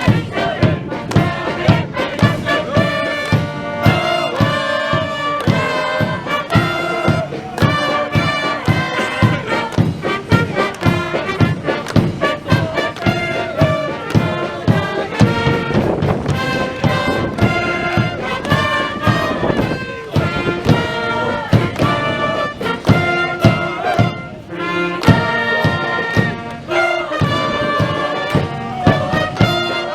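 Live brass band playing a cheer song, with horns holding sustained notes over a steady drum beat.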